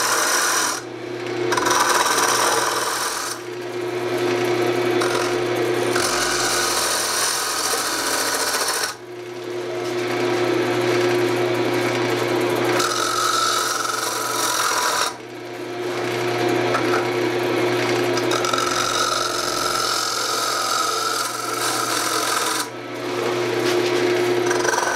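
Lathe motor humming steadily while a cutting tool scrapes and shaves the face of a spinning wooden horn blank. The cutting noise breaks off briefly several times as the tool comes off the wood.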